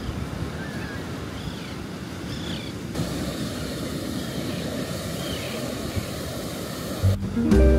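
Steady rush of ocean surf on a beach. Acoustic guitar music comes in near the end.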